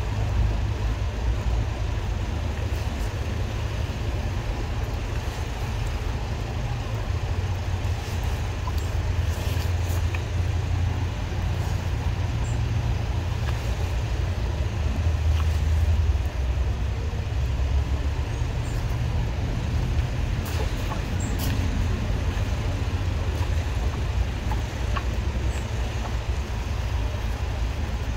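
Drain jetting machine running steadily with a low, continuous engine drone while its high-pressure hose jets a blocked drain through the rodding eye.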